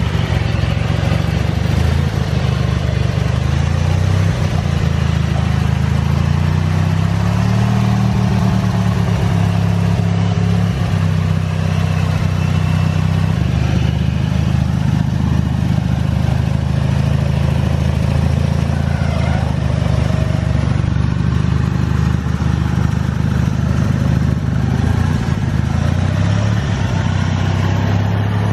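Small engines of modified off-road lawn tractors running as the machines crawl up a dirt trail, more than one engine at slightly different pitches, with a rise in revs several seconds in.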